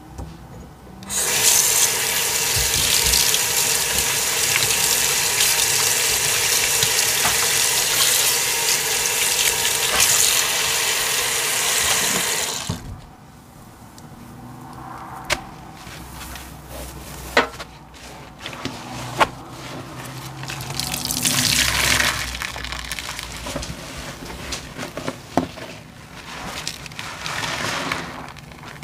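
Kitchen faucet running into a stainless steel sink, a steady rush that starts about a second in and is cut off sharply about halfway through. After it, a soapy sponge is worked and squeezed in the suds, quieter wet squishing and splashing with a few sharp clicks.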